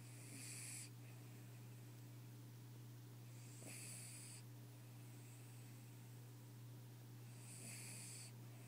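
Cavalier King Charles Spaniel snoring quietly: three breathy snores about four seconds apart.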